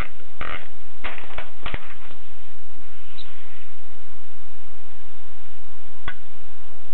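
Type bars of a Groma Gromina portable manual typewriter striking: a run of quick keystrokes in the first two seconds, a pause, then a single strike near the end.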